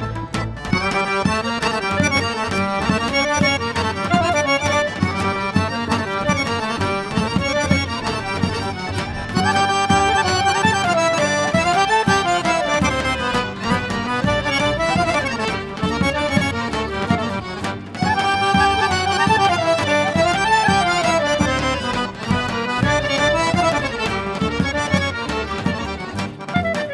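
Traditional Macedonian folk dance tune played by an accordion-led band, with a melodic phrase that comes round again about every eight seconds.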